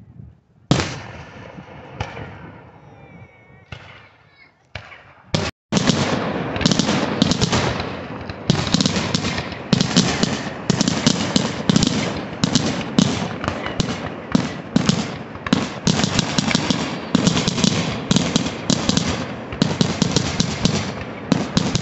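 Aerial fireworks shells bursting overhead. A single bang comes about a second in, followed by scattered pops. From about six seconds in it becomes a rapid, nonstop barrage of bangs and crackling.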